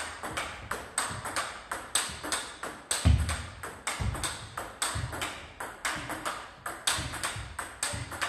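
Table tennis rally of forehand drives against blocks: a quick, even run of ping-pong ball clicks off the rackets and the table, several a second. Dull low thumps come about once a second, the loudest about three seconds in.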